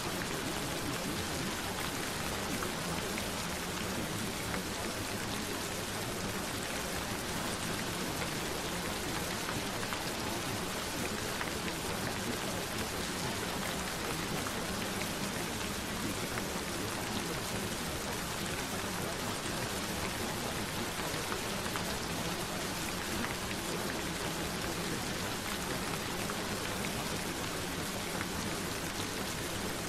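Steady rain falling: an even hiss with fine, scattered drop taps, unchanging throughout.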